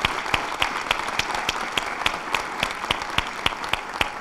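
Audience applauding, with a steady run of sharper single claps standing out above the rest, about three and a half a second.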